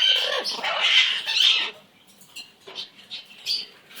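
Pet bird calling: a run of loud chattering calls for nearly two seconds, then a few short, faint chirps.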